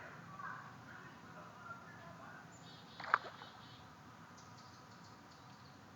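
Common loons at the nest making soft, quiet calls over a faint outdoor hiss, with one brief sharp click about three seconds in and faint high chirps of small birds or insects after it.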